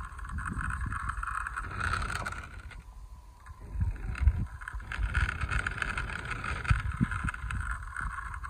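Small wheels of a die-cast model Ambassador car rolling on rough concrete, pushed by hand: a gritty rolling noise in two runs, with a short break about three seconds in. Wind rumbles on the microphone underneath.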